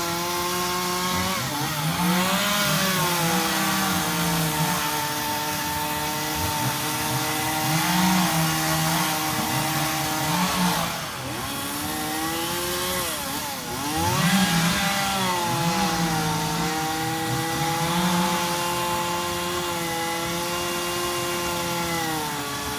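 Gas chainsaw running at high speed, its pitch sagging and recovering a few times as it bites into wood. A lower engine hum comes and goes underneath.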